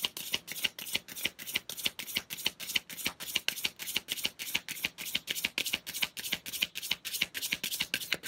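A tarot deck being shuffled by hand: cards slapping and riffling together in a quick, even rhythm of about five strokes a second, the reader drawing a clarifying card.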